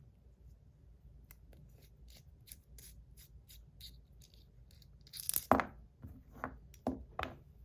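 Small packaging being torn or worked open by hand: a run of faint, crisp little ticks. Then several sharp clacks as hard parts are handled, the loudest about five and a half seconds in.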